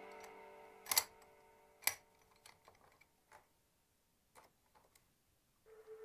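Background music fading out, then two sharp clicks about a second apart and a few fainter ticks from handling a hand tool near copper pipe. A steady held note from the music comes back in near the end.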